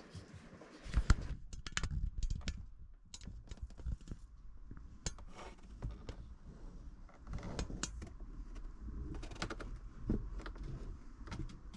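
Irregular clicks, knocks and rustles of cables and plugs being handled and pushed into the back of a small 12-volt TV.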